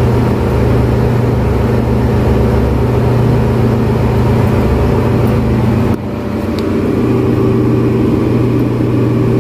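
Steady, loud drone of ship's engine-room machinery, a low hum heard from inside the main engine's scavenge space. It dips briefly about six seconds in.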